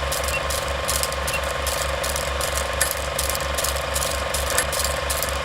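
Rapid, steady mechanical clicking and whirring over a low pulsing beat.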